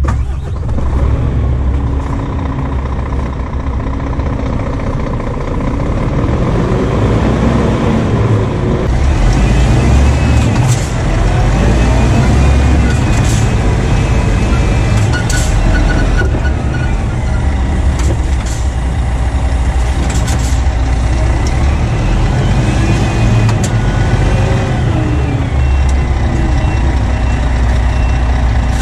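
Scania 450 S truck's 13-litre XPI diesel engine running as the tractor unit moves, its engine speed rising and falling, with a few short hisses about ten, fifteen and twenty seconds in.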